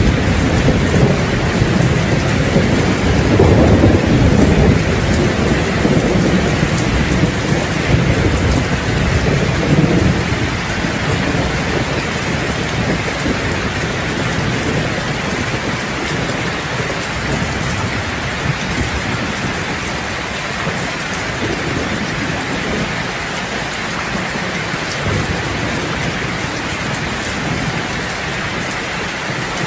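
Heavy rain falling steadily on a roof, with low rolling thunder rumbling through the first ten seconds or so and then fading.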